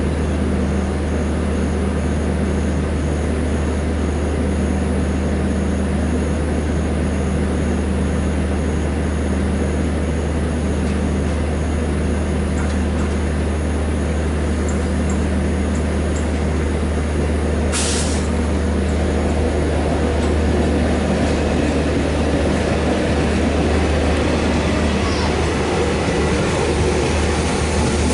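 WDP3A ALCO diesel locomotive standing and idling with a steady low drone. About eighteen seconds in it gives one short, sharp burst of released air, the ALCO's 'sneeze'.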